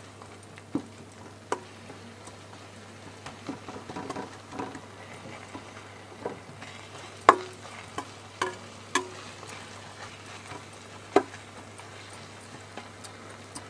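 Steel spatula stirring a thick masala in a stainless steel pan, with irregular scrapes and sharp knocks against the pan over a faint sizzle; the loudest knocks come about seven and eleven seconds in.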